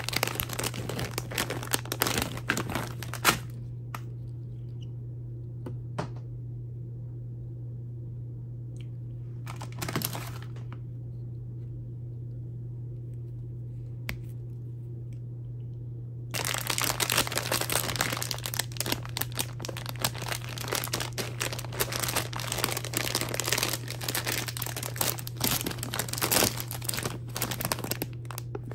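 Plastic and foil candy bags crinkling and rustling as they are handled and opened, with a sharp click a few seconds in. After that comes a long quiet stretch with only a steady low hum and one brief rustle. Dense crinkling starts again about two-thirds of the way through, as a bag of sour chewy cubes is opened.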